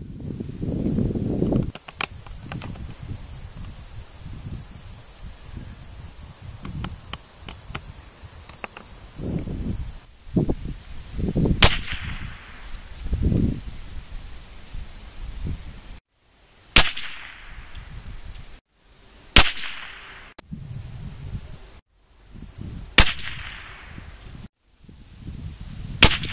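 Winchester 94/22 lever-action rifle firing .22 LR SK Pistol Match rounds: five sharp shots, each with a short ring, the first about a third of the way in and the rest about every three seconds. Insects trill steadily high in the background.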